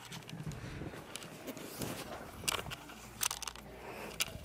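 Handling noise of a handheld camera being carried through the house: rustling and low thumps, with a few sharp clicks, the clearest about two and a half and three seconds in.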